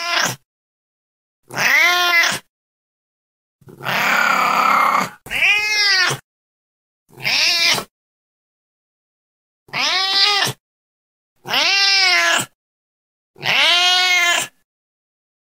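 Domestic cat meowing over and over: about eight separate meows, each rising then falling in pitch, with dead silence between them. The one about four seconds in is rougher and longer than the rest.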